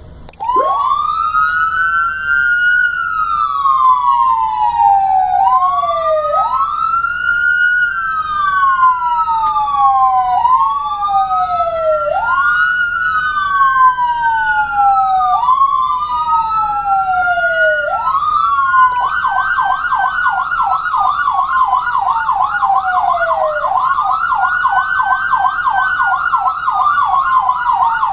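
Two electronic sirens, a Whelen Cencom Gold and a Federal Signal PA150, each driving a 100-watt speaker, wailing together out of step. Each rises and falls about every five seconds. About two-thirds of the way in, one switches to a fast yelp of about four sweeps a second while the other keeps wailing.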